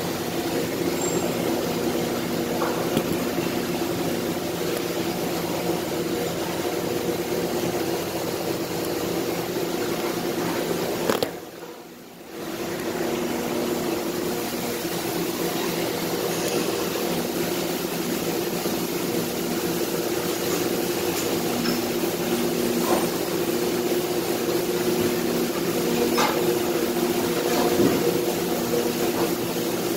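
Factory-floor machinery running: a steady mechanical drone with a layered hum from large molding machines. The sound drops away briefly about a third of the way in, and a few sharp clicks come near the end.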